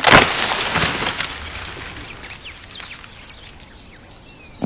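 A loud rustling, scraping burst in the first second or so, then birds chirping, with a fast, even train of high ticking calls near the end.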